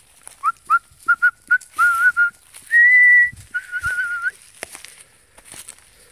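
A person whistling to call dogs: a run of short whistled chirps, then a higher held note about three seconds in, followed by a wavering note.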